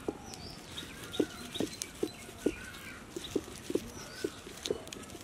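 A hen clucking repeatedly in short, uneven calls, about two a second, with fainter high chirps of small birds over them.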